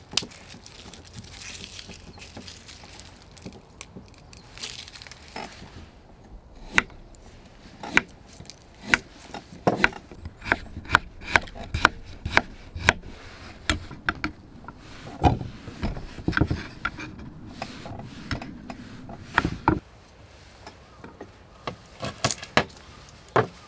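Kitchen knife slicing ginger on a wooden cutting board: irregular sharp knocks of the blade on the board with some scraping, coming thick and fast from about seven seconds in.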